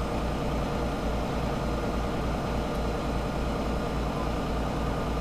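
Semi-truck's diesel engine running steadily at low revs, a deep, even rumble.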